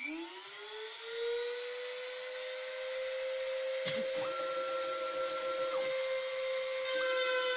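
The rotary-tool spindle of a homemade CNC router spins up, its whine rising in pitch and then holding a steady note. About four seconds in there is a click, then a second, higher whine from the stepper motors as the cutter head moves for a second or two. Near the end the stepper whine comes in again.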